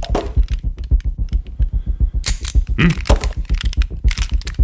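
Sharp metallic clicks and clatter of handguns being handled, over a fast, steady low pulse of about seven beats a second.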